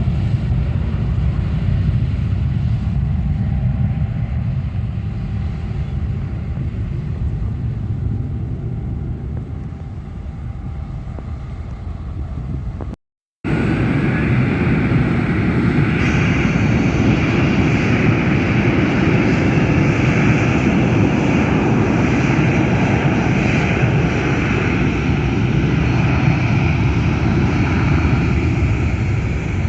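Airliner jet engine noise, a steady rumble; about 13 s in the sound drops out for a moment and returns louder, with a higher whine over the rumble.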